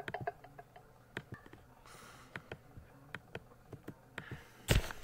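A series of faint, short clicks at an irregular pace, several a second, then a sudden loud burst of sound near the end.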